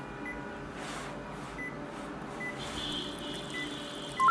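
A few faint short beeps from a Konica Minolta bizhub copier's touch panel as its keys are tapped, over a low steady hum. Right at the end a loud beep starts, warbling between two pitches.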